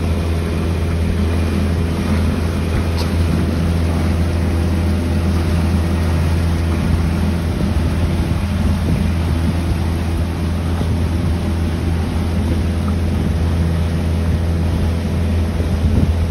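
Passenger motorboat's engine running steadily: a loud, low drone with a hiss above it.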